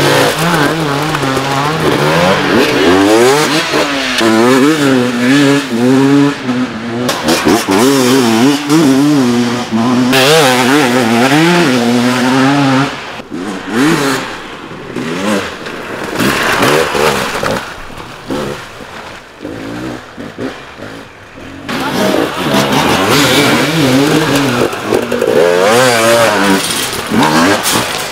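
Hard enduro dirt bike engines revving, the throttle worked up and down so the pitch wavers quickly. The engine sound drops away for several seconds about halfway through, then picks up again.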